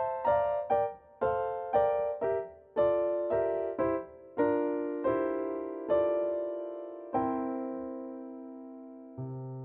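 Solo piano playing a light melody in quick separate notes and chords, slowing into long held chords over the last few seconds, with a lower chord struck near the end.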